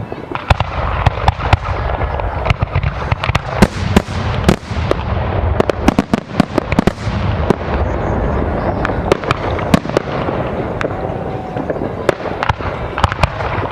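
Aerial fireworks display: a dense barrage of sharp bangs and crackles, several a second, over a continuous low rumble of shell bursts, starting about half a second in.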